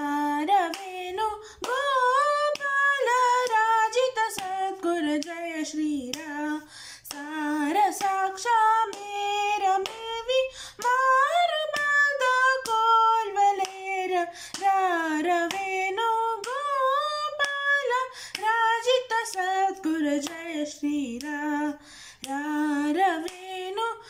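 A girl's solo voice singing a Carnatic swarajati in Bilahari raga, unaccompanied, the notes bending and wavering in sliding ornaments.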